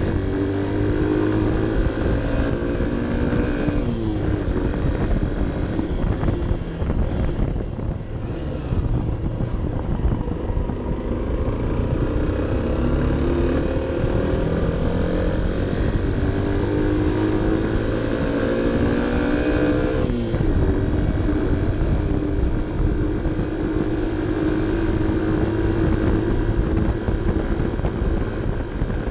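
Honda CB 125 F's small single-cylinder four-stroke engine pulling under load. The revs climb slowly and drop sharply twice, about four seconds in and about twenty seconds in, as the rider shifts up.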